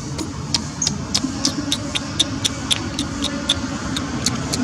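A regular ticking, about four short sharp clicks a second, over a low steady rumble.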